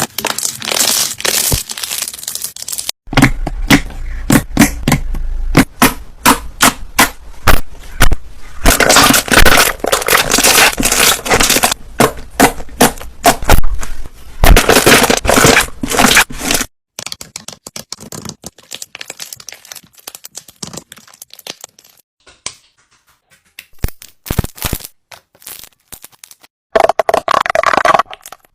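Slime being squeezed, poked and stretched by hand, giving fast runs of sharp crackling pops and clicks. The dense loud crackling stops suddenly about two-thirds of the way in, leaving sparser, quieter clicks, with a louder patch near the end.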